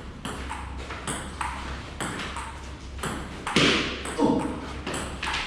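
Table tennis rally: the celluloid-type ball clicking off paddles and the table in quick succession, about two hits a second.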